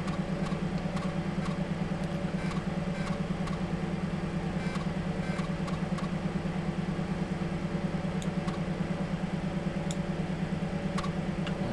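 Steady low hum with a few faint clicks.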